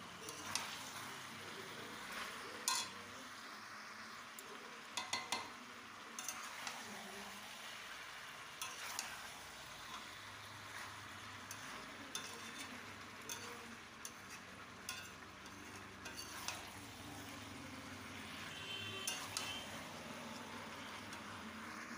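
Chicken, potato and cauliflower curry sizzling in a kadai as it is sautéed down (the kosha stage), stirred with a spatula that scrapes and knocks against the pan now and then.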